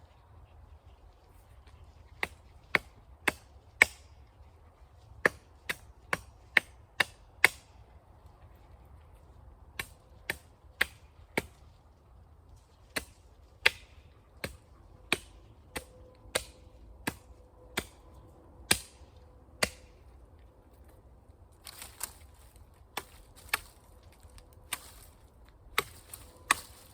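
A blade chopping at the bottom end of a wooden pole to sharpen it to a point. About thirty sharp strikes come at an irregular pace of one or two a second, with a brief pause partway through.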